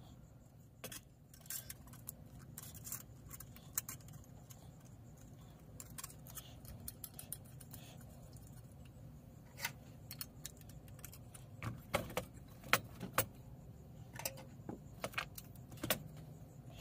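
Small metal clicks and clinks of a Coleman 508 camp stove's burner bowl, windscreen and generator being handled and fitted onto the fuel tank, coming thicker and louder in the second half, over a low steady hum.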